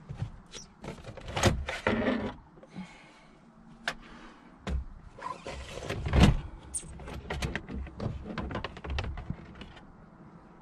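Hard plastic center console being worked loose and lifted out over the gear lever: a run of clicks, knocks and plastic rubbing on plastic, with the loudest thump about six seconds in.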